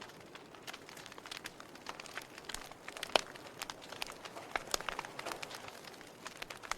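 Burning wood fire crackling: irregular sharp pops and snaps over a soft hiss, with one louder pop about three seconds in.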